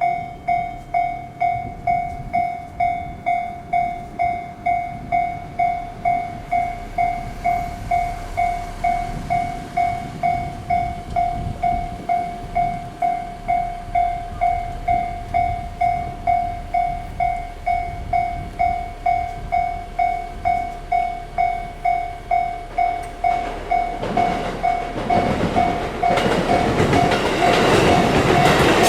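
Japanese level-crossing warning bell clanging steadily, about two strokes a second. Near the end an E257-series limited express train approaches and passes through the crossing, its running noise rising over the bell.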